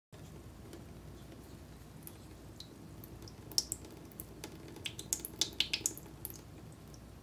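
A cluster of sharp little clicks and ticks, bunched between about three and six seconds in, from a frozen cola ice bottle being handled over a glass plate as melted cola drips into a puddle.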